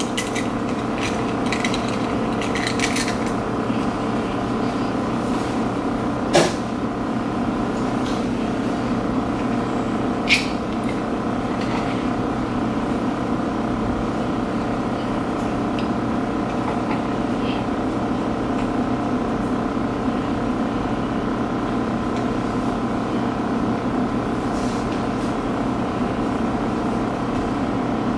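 Steady mechanical droning hum that does not change, with two sharp clicks about four seconds apart.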